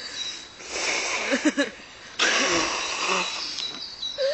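A person sneezing: a breathy build-up, then a sudden loud sneeze about two seconds in that trails off over about a second. Crickets chirp steadily behind.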